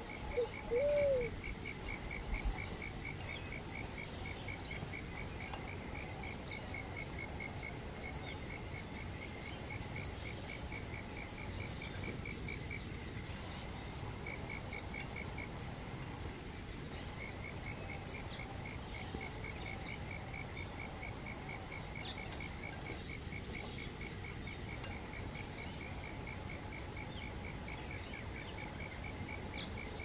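Insects calling: a steady high-pitched buzz and a rhythmic chirping repeated several times a second, which stops for a few seconds about halfway through, with scattered short bird chirps.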